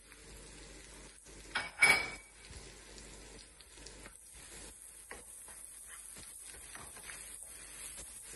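Chopped onion, garlic and herb filling sizzling gently in a frying pan while a wooden spoon stirs it, with small scraping clicks. About two seconds in, one sharp clink with a short ring.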